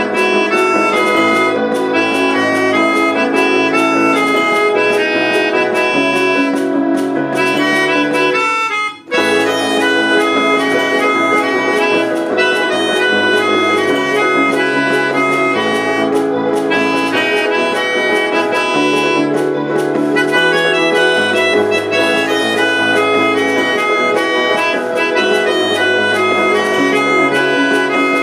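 Instrumental pop arrangement for four parts played together: a melodica carrying the melody over upright piano, a percussion pad and keyboard strings. The music stops for a split second about nine seconds in, then carries on.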